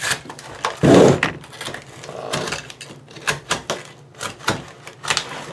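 Paper wrapping being torn and crinkled off a cardboard firework cake: a run of rustles and crackling clicks, loudest about a second in.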